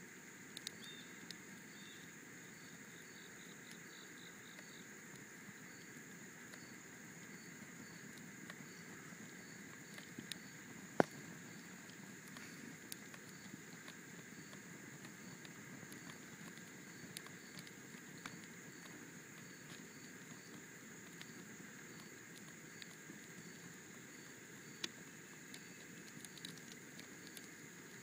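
Cardboard box burning with faint crackling and scattered pops, one sharp pop about eleven seconds in. Under it, insects chirp faintly and steadily about once a second.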